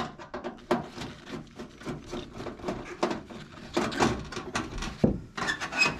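Hand screwdriver backing a screw out of a stainless steel range hood light panel: a run of small, irregular metal clicks and scrapes, a little louder about four seconds in and near the end.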